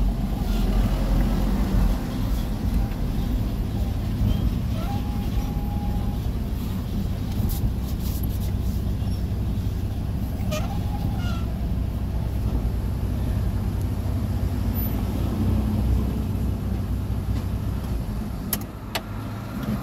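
Car's engine and road noise heard from inside the cabin as it drives slowly, a steady low rumble, with a few sharp clicks here and there.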